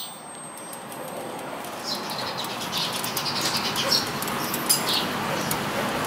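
Freshly laced spoked motorcycle wheel spinning on a truing stand, with a steady rushing noise and scattered light ticks as it rubs at the side: a sign that the wheel is not yet trued.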